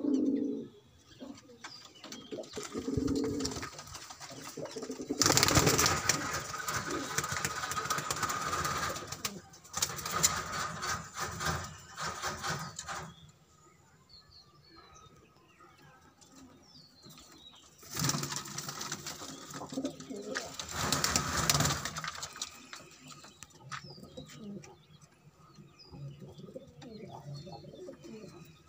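Domestic pigeons cooing in a loft, with two long stretches of loud rustling noise in the middle.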